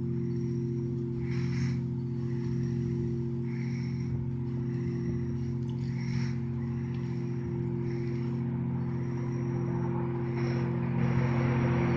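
Electronic drone from speakers: several low tones held steady as a hum, with higher tones coming and going over it, growing louder near the end.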